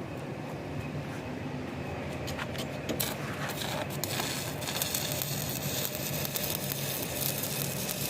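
Electric arc welding: a crackling hiss that starts about three seconds in and runs on over a steady low hum.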